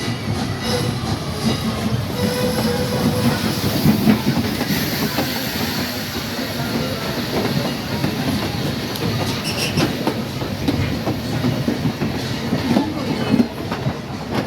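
Passenger train rolling along the track, heard aboard a coach: a steady rumble of wheels on rail with faint rattles and clicks.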